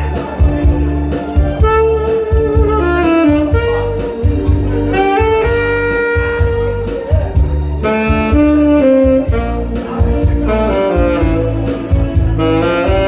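Instrumental trot music: a saxophone-like lead melody over a steady bass-and-drum beat, with no singing.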